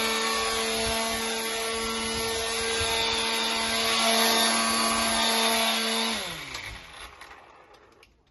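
Hyundai 40V cordless strimmer running its electric motor and line head at a steady, high pitch. About six seconds in it winds down, the pitch falling as it fades away.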